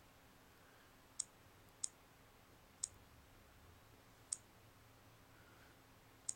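Five faint, sharp clicks, irregularly spaced, as keys are pressed on a smartphone's touchscreen keyboard.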